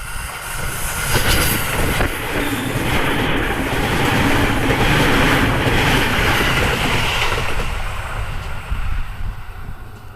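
MUE-Train, JR East's test electric train rebuilt from a 209 series EMU, passing close by with wheels running on the rails. It grows loud within the first second or two, stays loud for several seconds and fades away near the end.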